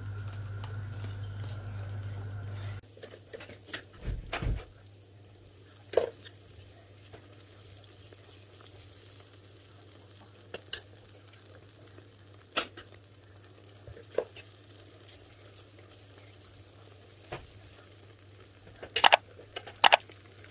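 Oil sizzling faintly in a frying pan as pişi dough fries, with scattered clicks of a fork and a metal spoon against the pan and a cluster of sharper clicks near the end. A steady hum runs for about the first three seconds and then cuts off.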